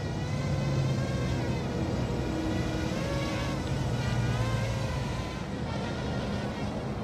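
ZMR 250 racing quadcopter in flight, its brushless motors and propellers buzzing in a high whine that rises and falls in pitch with the throttle.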